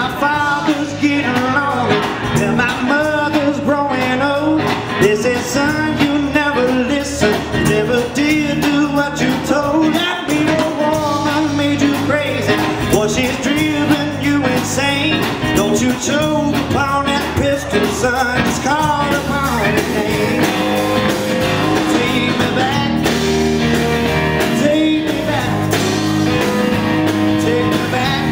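Live blues-rock band playing an instrumental passage: electric guitars, bass guitar and drums, with a lead line of bent, wavering notes on top.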